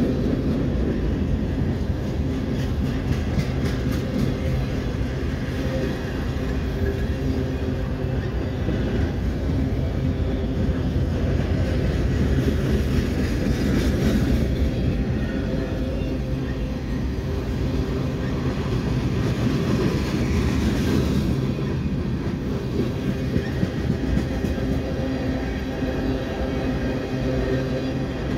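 Freight train cars, tank cars and boxcars, rolling past close by: a steady rumble of steel wheels on the rails with occasional clicks.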